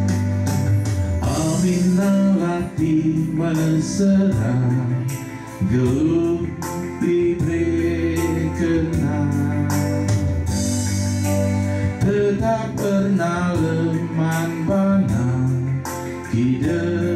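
A man singing a hymn to electronic keyboard accompaniment, the keyboard holding steady organ-like chords under the voice.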